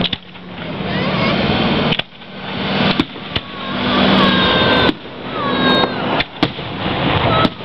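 Aerial firework shells bursting, several sharp bangs spaced a second or two apart over a steady noisy background.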